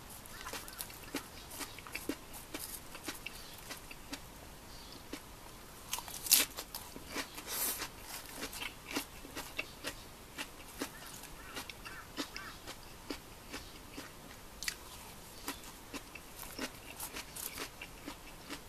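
Close-up crunching and chewing of fresh salad (lettuce and cucumber), with many small crisp clicks and one louder clack about six seconds in.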